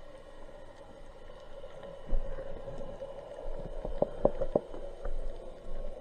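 Underwater ambience picked up through the camera's housing while diving: a steady low hum with faint scattered clicks. A dull thump comes about two seconds in, and three quick knocks follow around four seconds in.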